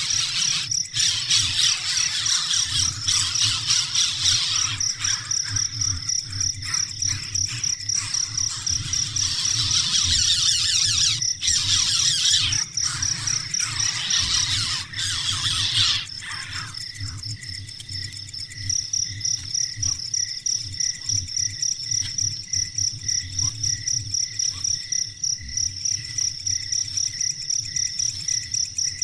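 Crickets chirping in steady, rapid high-pitched pulses. For the first sixteen seconds or so a denser high hiss runs over them and then stops. After that a second, lower chirping rhythm joins in.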